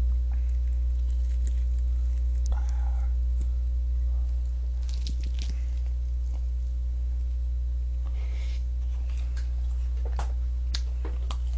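A person biting and chewing crispy honey garlic fried chicken: wet, squishy chewing with a few short crunches every couple of seconds. Under it runs a steady low electrical hum.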